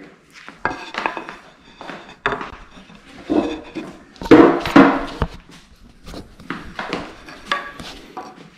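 Irregular knocks, clicks and clatter of garment rack parts being handled as a wooden dowel is fitted into the frame, loudest about four seconds in.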